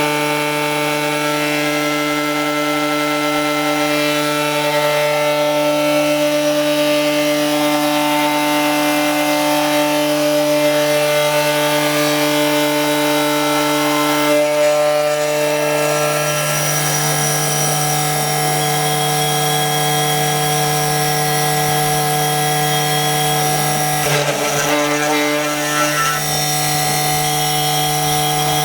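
CNC milling machine running a cut in 3 mm aluminium plate: the spindle gives a steady whine made of several tones over a haze of cutting noise, which turns rougher about halfway through and again near the end.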